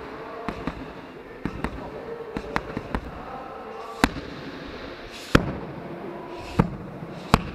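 Boxing-gloved punches and shin kicks smacking into Muay Thai pads in a series of sharp slaps. Quicker, lighter strikes come in the first three seconds, then four louder single hits about a second apart.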